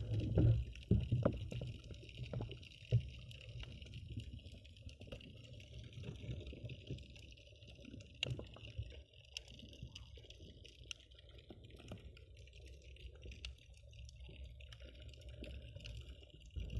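Muffled underwater sound picked up by a submerged camera: a low rumble of moving water with scattered small clicks, louder with a few knocks in the first couple of seconds.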